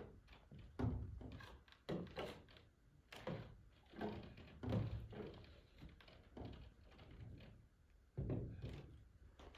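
Faint, irregular dull thunks and knocks from work on the greenhouse's roof panels as sealant is brushed onto the seams.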